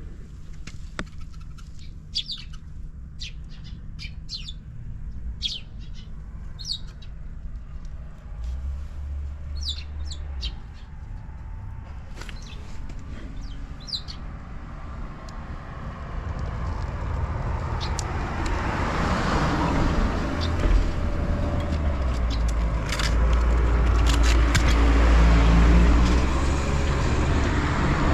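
Buell XB12SCG Lightning's air-cooled V-twin engine running, getting louder and fuller from about halfway through; the seller calls it free of abnormal noises. Birds chirp in the first half.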